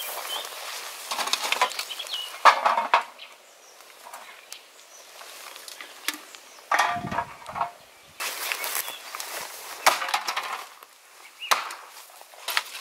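Empty aluminium and tin drink cans clattering and rattling in irregular bunches as they are picked up from a litter pile and tossed together, with a dull thud about seven seconds in.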